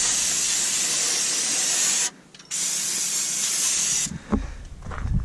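Aerosol can of engine degreaser spraying with a steady hiss, in two long sprays of about two seconds each with a short break between. The hiss stops about four seconds in.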